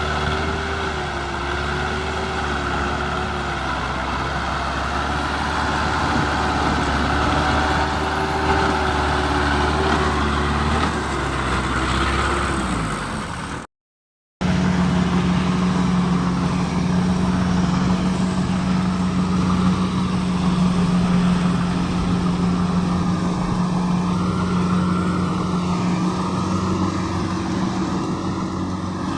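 Kubota DC-70 combine harvester's diesel engine running steadily under load while harvesting rice. The sound cuts out suddenly about halfway through, then resumes half a second later with a steadier, lower hum.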